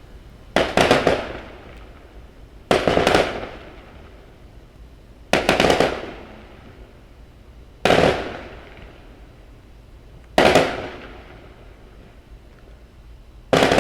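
Fireworks going off: six volleys about two and a half seconds apart, each a quick cluster of sharp bangs that trails off in an echoing rumble.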